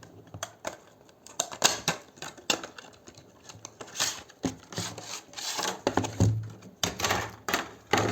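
Packaging being opened and handled by hand: irregular clicks and taps with short rustling swishes.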